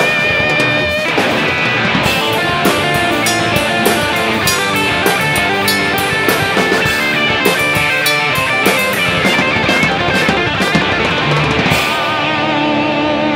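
Electric guitar, a PRS with a roasted maple neck, playing a rock part over a full drum kit. Near the end the drums drop out and held guitar notes ring on.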